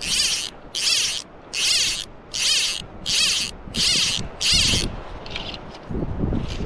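Abel TR click-and-pawl fly reel clicking in quick ratcheting bursts as fly line is pulled off it in strips, about seven strong pulls in a row followed by a couple of softer ones near the end.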